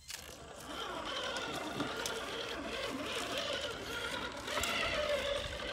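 Electric motor and geared drivetrain of an RC rock crawler whining steadily as it crawls over rocks, with a few faint clicks.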